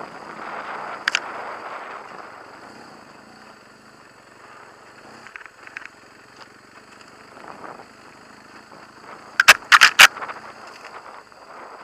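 BMW HP2 Enduro's boxer twin engine running as the bike rides a rough dirt trail, louder in the first couple of seconds. Near the end comes a quick cluster of four sharp knocks, the loudest sounds here.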